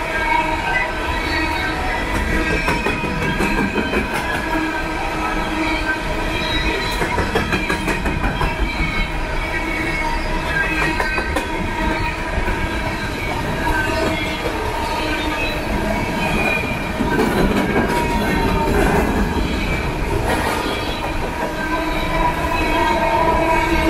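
Freight train of hopper cars rolling past close by: a steady rumble of steel wheels on rail, with short clicks as the wheels cross rail joints and several steady high-pitched wheel-squeal tones over the top.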